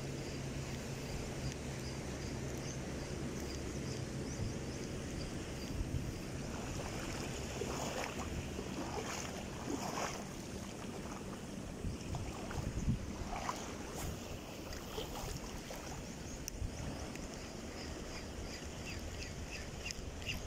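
Open shoreline ambience of wind and gently moving shallow sea water. A distant boat engine's low hum runs at first and stops about five seconds in.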